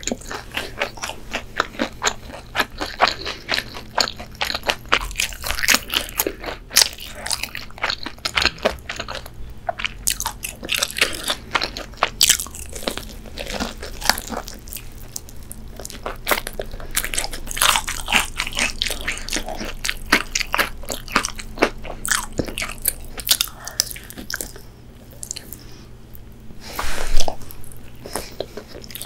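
Person biting and chewing crispy fried chicken wings, the fried coating crunching in irregular crackles, with one louder burst near the end.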